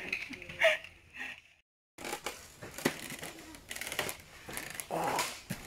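Scattered light clicks and knocks, with a short stretch of dead silence about one and a half seconds in where the recording cuts.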